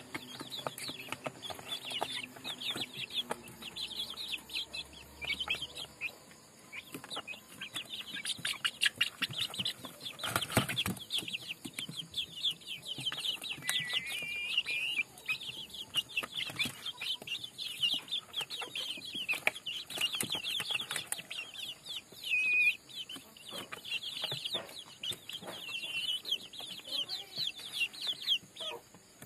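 Young native (nadan) chickens peeping and chirping non-stop in quick, high-pitched calls, with a few longer falling calls; a single sharp knock about ten seconds in.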